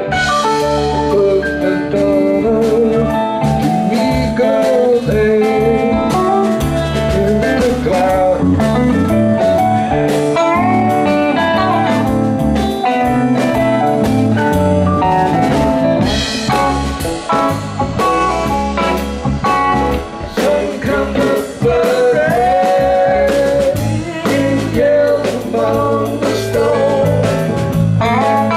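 Live electric band playing: electric guitar lead lines with bent, gliding notes over electric bass and drum kit.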